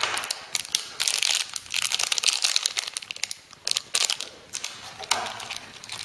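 Clear plastic accessory bags crinkling and rustling as hands pick through a smartphone's accessory box, with irregular crackles and small clicks.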